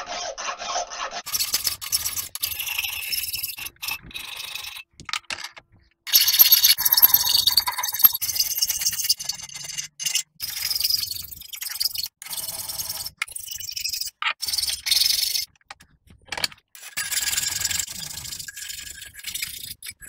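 Hand files rasping on a rough iron casting, taking off casting flash and surface imperfections. The strokes come in runs broken by short pauses, and the loudest run is about six seconds in.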